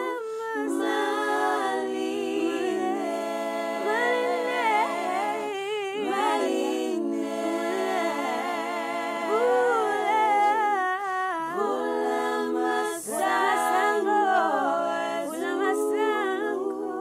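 Multi-tracked a cappella singing: one person's voice layered in four parts, singing in harmony with held and sliding notes and some humming.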